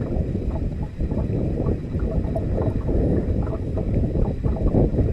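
Wind buffeting and rumbling on the microphone out on a fishing boat on open water.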